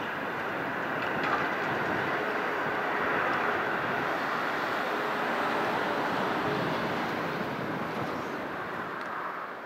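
JR West 521 series electric train running along the curve, its wheels and running gear making a steady rolling noise. It grows louder over the first few seconds, holds, then fades near the end as the train moves off.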